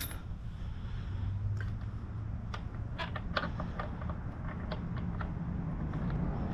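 Scattered light clicks and taps of hand tools and parts being handled while working on a motorcycle's rear wheel, over a low steady rumble.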